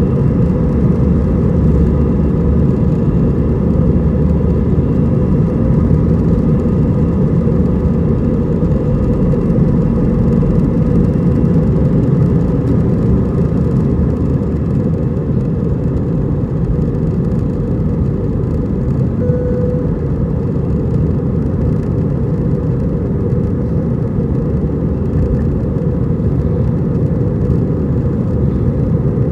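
Airbus A320's twin CFM56-5A3 turbofan engines at takeoff thrust, heard inside the cabin over the wing: a loud, steady rumble with a faint steady whine, through the takeoff roll and liftoff. A short beep sounds about two-thirds of the way in.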